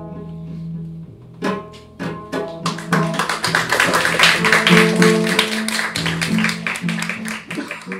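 Double bass playing closing music: a low note rings on, then single plucked notes, then from about two and a half seconds in a fast, dense flurry of plucked and struck notes that builds and then thins out near the end.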